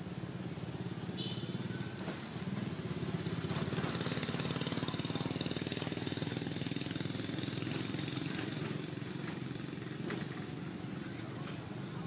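A small engine running steadily, growing a little louder about two seconds in and easing off again near the end.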